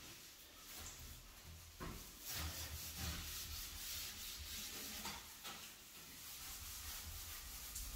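Sponge scrubbing a shower surface in repeated rubbing strokes, louder from about two seconds in.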